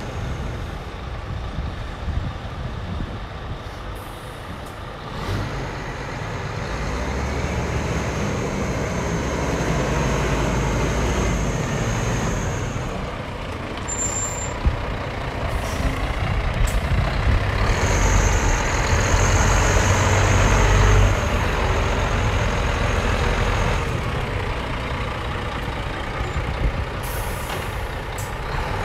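Scania R124 400's 12-litre straight-six diesel idling steadily, growing louder as it comes close and loudest about two thirds of the way through, with a thin high whine at times and a short hiss of air near the end.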